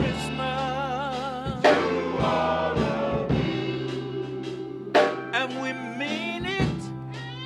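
Men's choir singing in harmony, holding long chords with vibrato over sustained low bass notes, in a gospel style.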